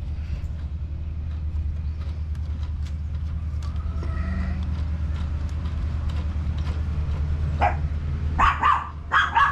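A dog barking several times in quick succession, starting about 8 seconds in, over a steady low rumble.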